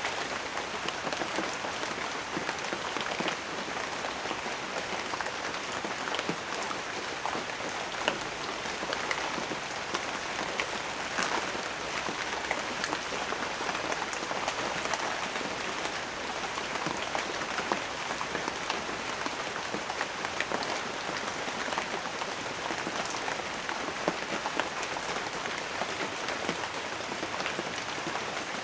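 Steady rain, with many individual drops pattering and ticking on a surface.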